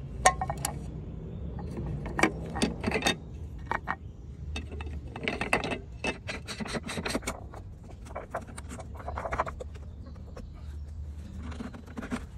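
Hard plastic parts of a pool filter pump's strainer housing (clear lid and basket) being handled: irregular clicks, knocks and short scrapes, with cloth rubbing.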